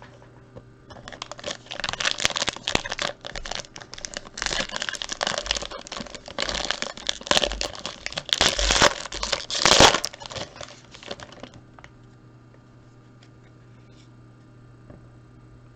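Plastic wrapping on a trading-card mini box being torn open and crinkled, in irregular crackling bursts for about ten seconds that stop suddenly near the end.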